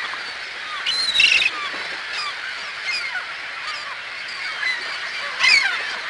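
A flock of gulls calling: many overlapping short cries over a steady colony din, with a few louder, higher calls about a second in and again near the end.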